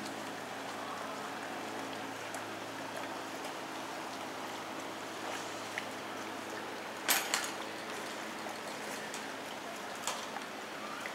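Steady rush of running or falling water, with a sharp double knock about seven seconds in and a fainter knock near the end.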